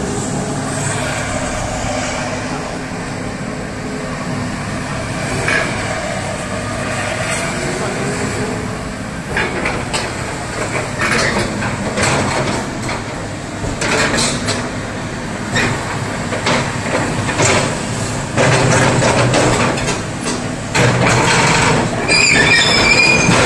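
Kobelco 200 hydraulic excavator running, its diesel engine giving a steady note as the boom and arm move. Repeated clanks and knocks start about nine seconds in and get louder from about eighteen seconds in.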